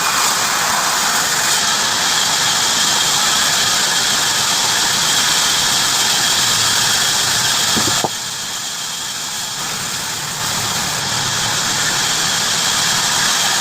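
Heavy-duty bandsaw sawing through wood, a loud steady mechanical running noise. About eight seconds in it drops abruptly to a lower level, and it rises back a couple of seconds later.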